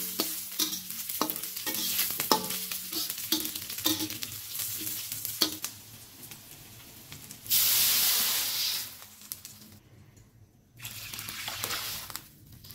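Metal spatula scraping and clinking against a wok while aromatics sizzle in hot oil, the clinks ringing briefly. About seven and a half seconds in there is a loud burst of sizzling hiss, and near the end water poured into the hot wok hisses.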